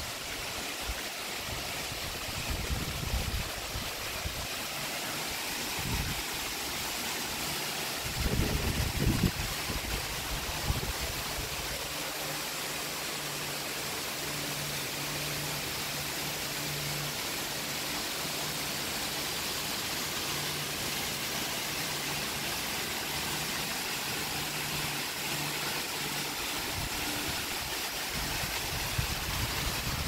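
Tall waterfall splashing down a rock cliff face: a steady rushing hiss of falling water. Several brief low rumbles break in during the first ten seconds, and a faint steady low hum comes and goes through the middle.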